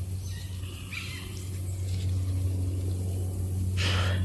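Steady low hum like a motor or machine running, with a brief hiss near the end.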